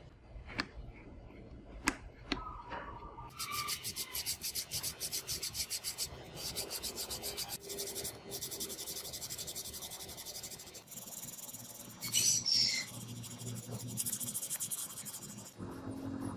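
Hand sanding a filler-coated 3D-printed plastic speaker housing with quick back-and-forth strokes, a rhythmic scratchy rasp, after a few sharp taps near the start.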